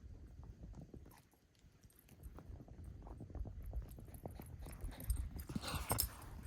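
Wind rumbling on the microphone, with a quick, irregular run of soft taps and thuds from a dog running about.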